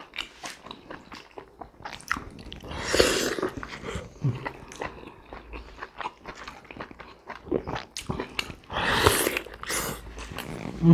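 Close-up mouth sounds of people biting and chewing juicy steamed pork momos: many short wet clicks and smacks, with two longer, louder breathy sounds about three and nine seconds in.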